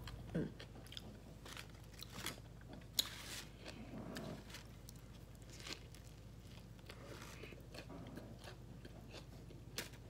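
Close-up chewing and biting of a sub sandwich: soft wet mouth clicks and smacks, with a sharper click about three seconds in.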